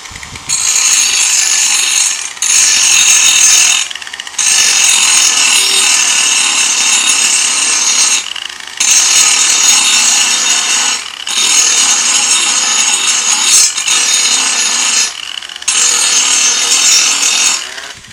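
Cheap 4-1/2-inch electric angle grinder running loud and harsh in about six long bursts with short breaks between them, its brushes arcing badly. The motor has been burned up by overheating, which the owner takes for an internal short at the commutator.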